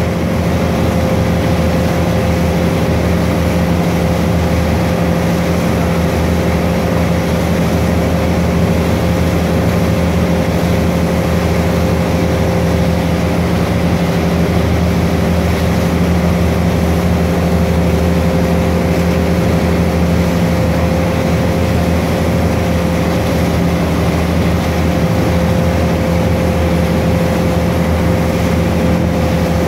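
A wakesurf tow boat's engine running steadily at surfing speed, a constant drone over the rush of churning wake water.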